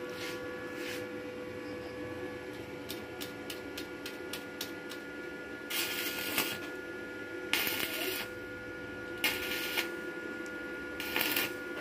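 Stick-welding arc from an inverter welding machine, first a few light ticks as the electrode is scratched to strike it, then the arc catching and burning in four short bursts of under a second each. This is the repaired machine being tested and now holding an arc; a steady faint high tone runs underneath.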